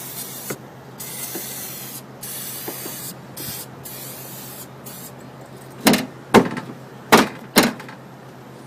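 Action Vapor Guard spray hissing in several short bursts as it is sprayed lightly over an air conditioner's circuit boards. About six seconds in come four loud knocks, the loudest sounds here.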